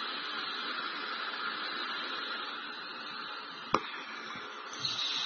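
Steady hiss of background noise, with a single short click about three-quarters of the way through.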